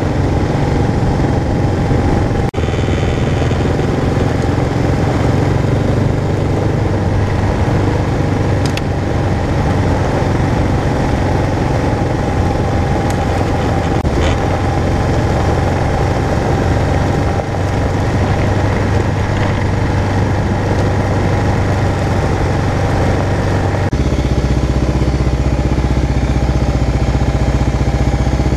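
Kawasaki KLR650's single-cylinder four-stroke engine running steadily under way on a dirt road, with road and wind noise. Near the end the sound switches abruptly to a steadier, lower drone, the bike idling at a standstill.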